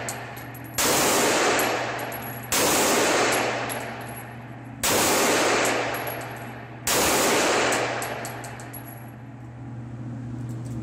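Four pistol shots fired about two seconds apart, each a sharp crack followed by a long echo that rings out in the enclosed range lane.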